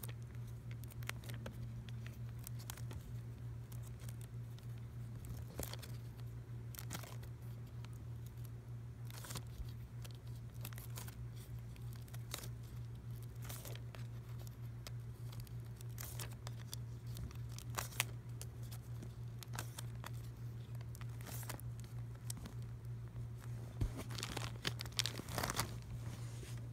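Clear plastic outer sleeves on vinyl LP records crinkling and rustling as the albums are flipped through by hand, in short scattered bursts that come thicker near the end. A steady low hum runs underneath.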